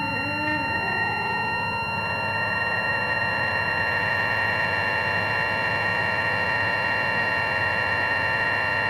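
Modular synthesizer playing a sustained, buzzy electronic drone: several steady high tones over a noisy, reedy band centred on a held pitch near 2 kHz. Lower notes slide down and drop out within the first second.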